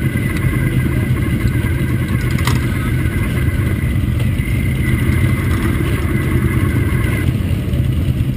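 Motorcycle engine running steadily, a dense low rumble.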